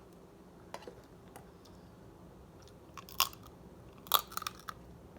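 Close-up eating sounds: chewing with scattered wet mouth clicks and smacks, a louder burst about three seconds in and a cluster of sharper clicks around four seconds in.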